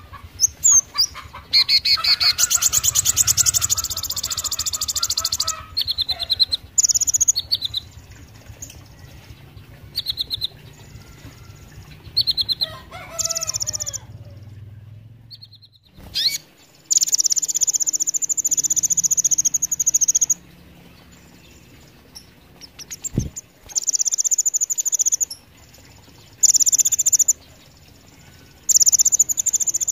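Male Van Hasselt's sunbird (kolibri ninja) singing: loud, high-pitched bursts of rapid twittering and trilling, with short pauses between phrases and a silent gap about halfway through. A vigorous, non-stop song full of sharp high notes.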